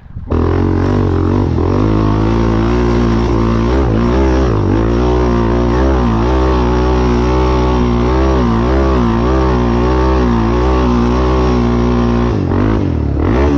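An off-road vehicle engine running loud and close, its pitch steady with small wavers. About twelve seconds in the pitch swings down and back up.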